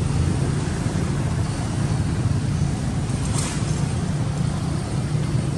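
A steady low rumble, with a brief faint rustle about three and a half seconds in.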